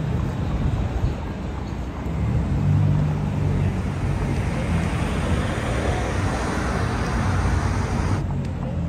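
Road traffic going by, with a vehicle passing loudest about three seconds in and a steady hiss of tyres that cuts off suddenly near the end.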